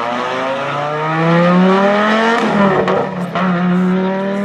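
Classic rally car's engine revving hard as it accelerates out of a hairpin, pitch climbing steadily. About two and a half seconds in there is a gear change with a few sharp cracks, then the pitch climbs again.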